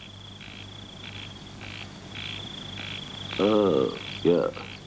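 Night chorus of insects and frogs: a steady high trill that pulses about twice a second. A person's voice cuts in briefly twice, a little past the three-second mark.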